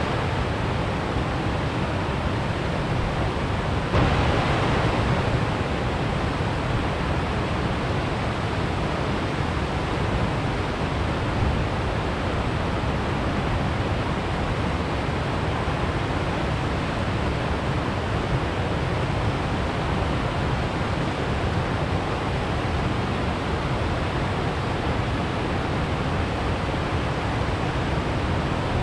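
Steady rush of a creek's small waterfall cascading over stepped rock ledges, with a short, slightly louder stretch about four seconds in.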